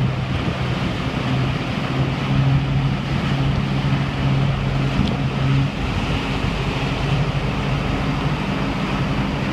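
Wake boat's engine running steadily under the rush of wake water and wind, its pitch stepping up a little past halfway as the boat is brought up to wakesurfing speed.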